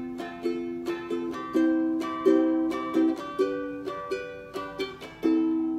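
Ukulele played alone, strummed chords at about three strokes a second, each ringing briefly and fading before the next.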